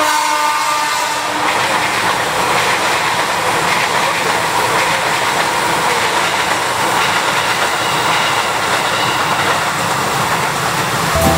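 KRL electric commuter train passing close by over a level crossing, a steady loud rush of wheel-on-rail noise.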